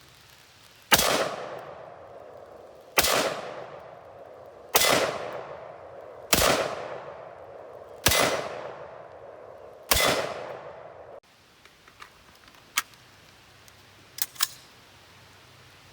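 Anderson AM-15 AR-style pistol fired six times in slow semi-automatic succession, a shot every second and a half to two seconds, each crack trailing off in a long echo. A few faint sharp clicks follow near the end.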